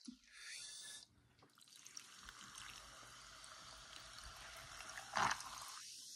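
Carbonated soda fizzing in a glass of ice after being poured from a can: a faint, steady hiss. A brief, louder bump about five seconds in.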